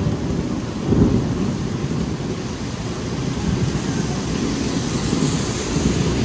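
Rain falling steadily, with a low rolling rumble of thunder underneath that swells about a second in.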